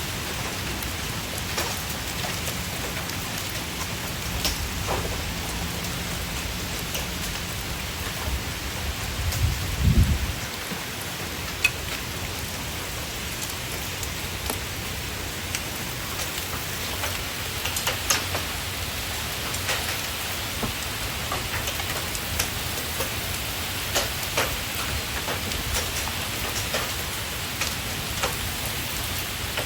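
A heavy hailstorm: a steady hiss of hailstones pelting a roof, gutters and trees, with many sharp individual impacts ticking through it. About ten seconds in a deep low rumble swells and dies away.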